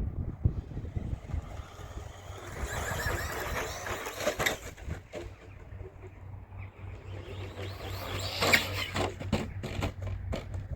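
RC rally car driving over rough ground: motor whine and tyre noise swelling as it runs and passes, loudest about eight seconds in, over a steady low rumble.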